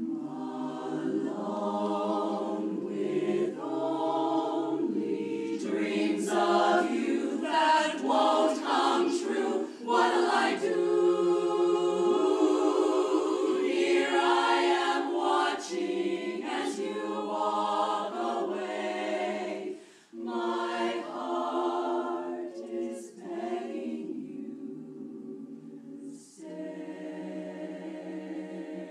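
Women's barbershop chorus singing a cappella in close harmony, phrases of held chords that grow louder through the middle, break briefly about twenty seconds in, and settle into a softer sustained chord near the end.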